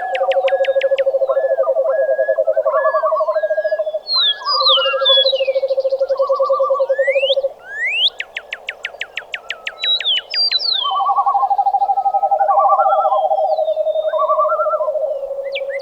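Dawn chorus of wild animals. Long, low trills of a few seconds each come one after another at slightly different pitches, some overlapping. Over them run rapid series of high clicking calls and whistled bird chirps.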